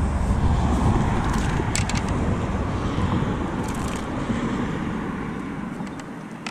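Steady rumble of road traffic mixed with wind on the microphone, slowly fading toward the end, with a few short clicks.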